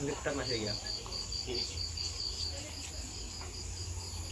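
An insect chirping in a high, even pulse, about five pulses a second, stopping about halfway through. A steady low rumble runs underneath.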